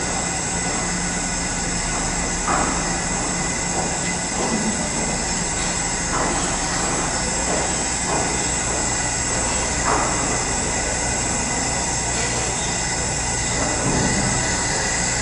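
Steady mechanical drone of the ferry Ritsurin's machinery and ventilation, heard inside a passenger deck: an even rushing noise with a high hiss on top and a low hum underneath.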